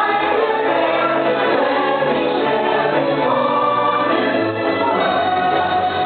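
Fireworks show soundtrack: music with a choir singing, held notes rolling on without a break, and no firework bangs standing out.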